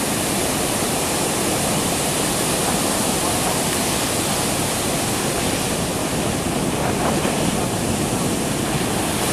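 Ocean surf breaking and washing up the shore: a steady rush of noise.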